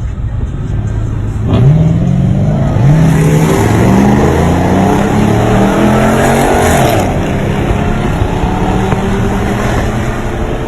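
Car engine accelerating hard, its note climbing through a couple of gear changes, then dropping about seven seconds in as the throttle comes off, and running on at a steadier pitch.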